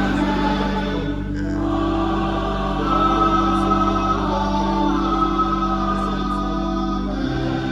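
Music with voices singing long held notes, choir-like.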